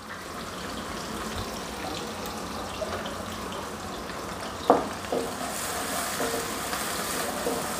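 Chopped onions sizzling steadily in hot oil in a metal karai. From about halfway a spatula stirs them, with a knock and light scraping against the pan.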